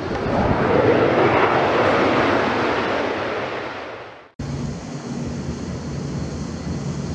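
A loud whooshing rush of noise swells and fades out over the first four seconds, cut off abruptly. Then comes the steady, distant rumble of an Airbus A320-214's CFM56 engines on approach, with a low hum and a faint high whine.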